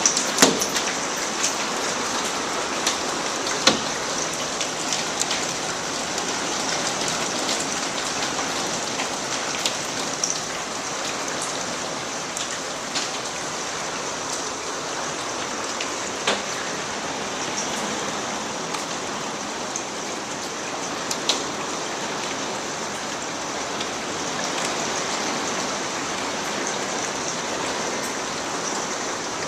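Hail and heavy rain pelting the glass roof of a glassed-in porch: a steady hiss of water with scattered sharp pops of hailstones striking the glass.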